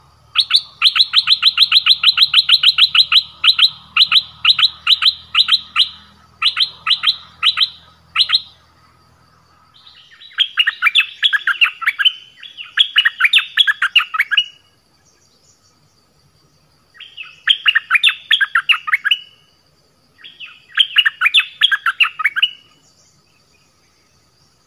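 Caged nok dok taeng (the Thai bird kept as a decoy for trapping) singing loudly. It opens with about eight seconds of fast, repeated rising whistled notes, then gives three shorter bursts of chattering phrases that fall in pitch. A steady insect drone runs underneath.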